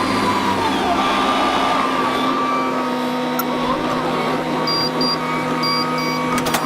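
A vehicle engine running steadily, its pitch dipping briefly about a second in, with a few sharp clicks near the end.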